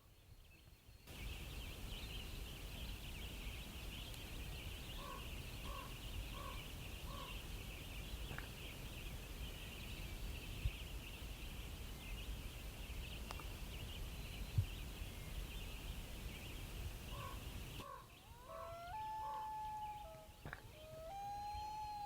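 Outdoor ambience: a steady high-pitched buzz over a low rumble, with a bird calling four times in a row. After a cut near the end come different bird calls with sliding and held notes.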